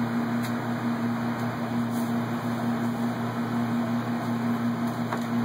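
Steady low machine hum at one constant pitch, with a few faint clicks.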